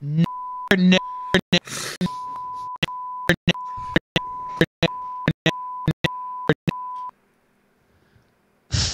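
Censor bleep tone sounding again and again, about a dozen short bleeps in a row, with split-second scraps of a man's voice between them, so that almost every word is bleeped out. The bleeping stops about seven seconds in; after a short hush, a voice starts just before the end.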